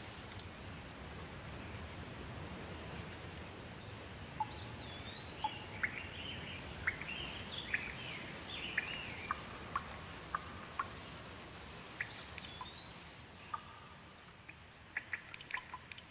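Steady rain falling, with birds calling several times through it and water drops ticking, the drops coming more often near the end as the rain eases.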